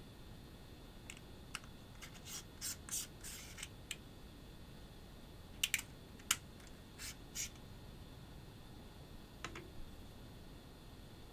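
Hands handling the GoPro's packaging: a run of short rustles and scrapes about two seconds in, then a few sharp light clicks and more brief rustles in the middle, with one faint click near the end.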